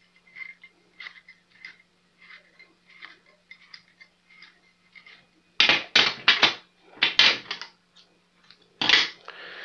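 Faint ticking and rustling as serving thread is pulled off a homemade bowstring server. A little past halfway comes a quick run of loud knocks and clatter as the server is set down on a glass counter, and there is another knock near the end.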